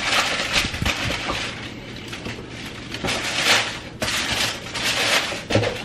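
Tissue paper crinkling and rustling as a pair of sneakers is pulled out of a cardboard shoebox, in several irregular bursts, loudest about three and a half seconds in.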